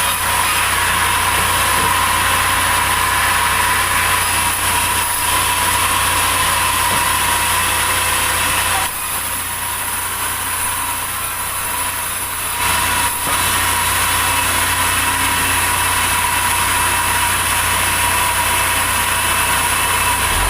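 Sawmill saw running steadily while cutting a large durian log, with a dense, loud hiss over a low machine hum. The cutting noise eases for about three seconds near the middle, then picks up again.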